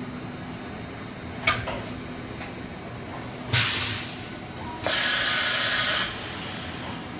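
Automatic tool change on a Johnford VMC1300HD Cat 50 vertical machining center, over the machine's steady hum. A sharp clack comes about one and a half seconds in, then a loud short rush of air about three and a half seconds in, then about a second of steady loud hiss as the spindle releases and the changer arm works.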